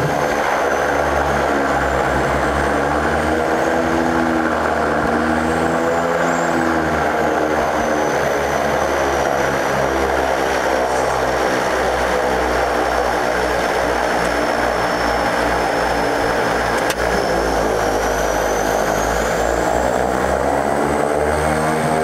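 De Havilland Canada DHC-6 Twin Otter's two Pratt & Whitney PT6A turboprop engines and propellers running, heard from inside the cockpit, with a slowly wavering beat between the engine tones. The pitch starts to rise near the end.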